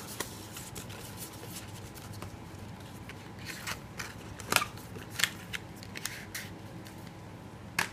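Paper and thin white cardboard of an iPad Air documentation sleeve being handled, rustling and crinkling, with sharp crisp snaps scattered through, the loudest about four and a half seconds in and just before the end.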